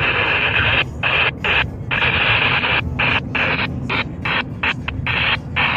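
Radio receiver static: a steady hiss with no voice that, from about a second in, keeps cutting out in short gaps, more and more often toward the end, as the signal breaks up.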